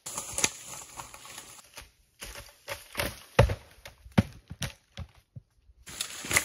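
Heavy firewood rounds tumbling down a slope and knocking into a pile of other rounds: a string of sharp wooden thuds and knocks, the loudest a few in a row about three and a half to four and a half seconds in.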